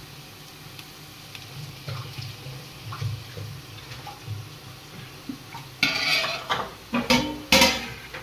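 Steel spatula scraping and knocking against a steel pot while chilli powder is stirred into onions frying in oil. Quiet at first, then several loud scrapes and clanks over the last two seconds.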